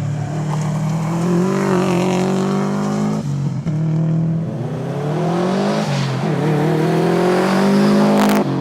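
Subaru WRX STI's turbocharged flat-four engine at full throttle on a rally stage. The revs climb and fall sharply three times at gear changes.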